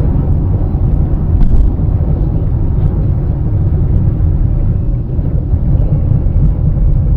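Steady low rumble of a car driving at highway speed, heard from inside the cabin: engine and tyre noise, with a brief click about a second and a half in.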